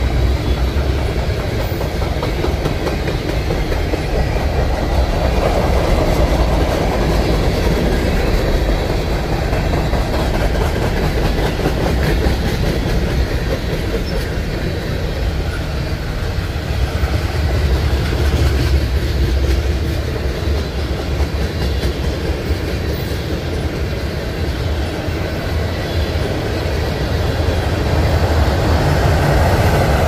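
CN mixed freight train of tank cars, covered hoppers and boxcars rolling past close by: a loud, steady rumble of the cars' steel wheels running over the rails.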